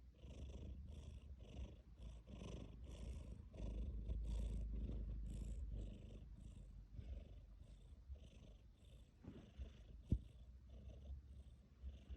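Domestic cat purring steadily, loudest for a couple of seconds in the middle, with one sharp tap about ten seconds in.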